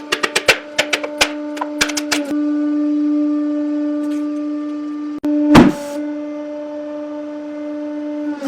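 A steady machine hum at one fixed pitch, with a quick run of sharp clicks in the first two seconds and a short, loud hissing burst about five and a half seconds in.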